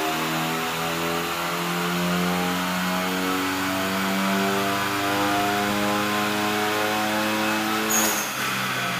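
Hyundai Veloster Turbo's turbocharged 1.6-litre four-cylinder under full load on a chassis dyno, its note climbing steadily through a dyno pull with the front wheels spinning on the rollers. About eight seconds in the pull ends: a short sharp hiss and the engine note drops away.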